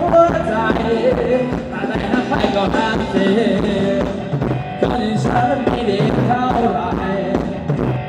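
Live Thai ramwong dance band music, a wavering melody over a steady beat.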